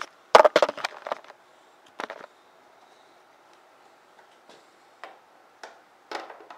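Handling clicks and knocks as a motorcycle side cover is fitted into the frame. A quick cluster of sharp clicks comes about half a second in, another short knock around two seconds, then a few light single clicks near the end.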